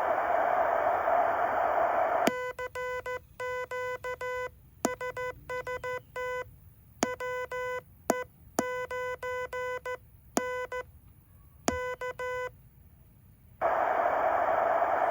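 Morse code sent on a Heathkit HW-8 transceiver, heard as a tone near 500 Hz keyed on and off in short and long elements, with a few sharp clicks among them. Receiver hiss cuts out about two seconds in, when the keying starts, and comes back near the end.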